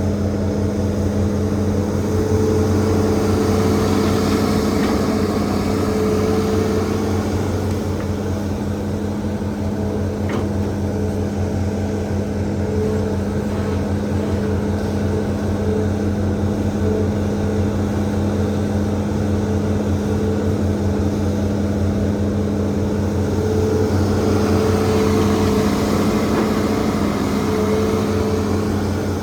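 Hitachi ZAXIS200 excavator's diesel engine running steadily under load, swelling louder twice, a few seconds in and again near the end, as the hydraulics work.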